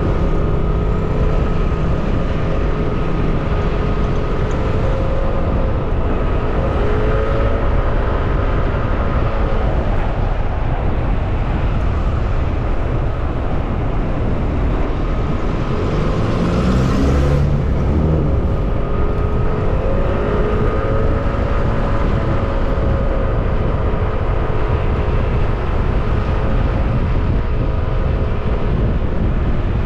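Yamaha NMAX scooter's single-cylinder engine running under way with steady wind rush on the camera, its pitch holding with small rises and dips as the speed climbs. About halfway through, another vehicle sweeps past close by.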